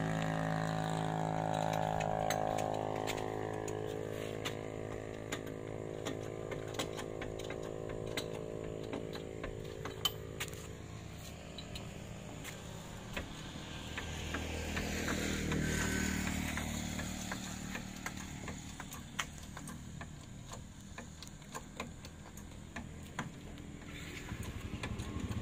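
A motor vehicle's engine running nearby and fading away over the first ten seconds or so, then another vehicle passing by around the middle. Scattered light clicks and knocks come from tools being handled under the car.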